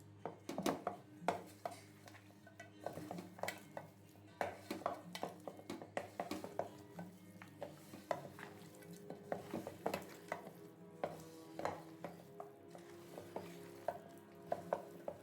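A spoon stirring in a metal pot or bowl, with many irregular clinks and knocks, over steady background music.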